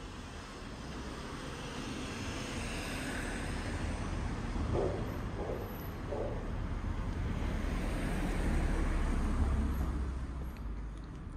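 City street traffic: passing road vehicles make a steady rumble and hiss that slowly builds, is loudest about three quarters of the way through, then eases off near the end.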